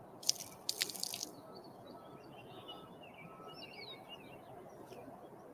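Water poured from a plastic bottle splashing onto the ground for about a second near the start. Birds chirp in the background.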